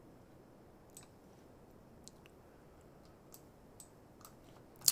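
Faint, scattered clicks of a computer mouse, about half a dozen spread over a few seconds, with one louder click near the end.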